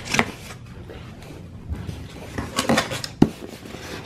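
Foam and cardboard packing being handled in an opened box: scattered rustles and knocks, with a short sharp click near the end.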